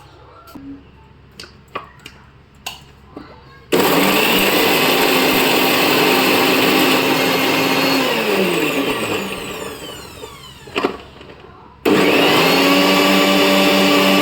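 Electric kitchen mixer grinder grinding ginger and tulsi leaves into a paste. After a few light clicks, the motor starts suddenly and runs loud and steady. About eight seconds in it winds down with a falling whine, then after a click it starts again.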